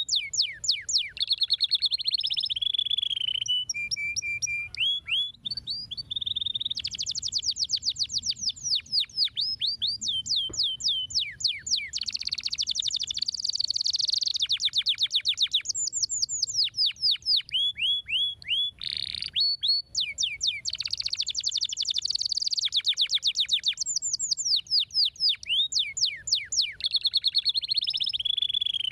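Domestic canary singing a long continuous song of high, rapid trills and rolls, changing phrase every second or two.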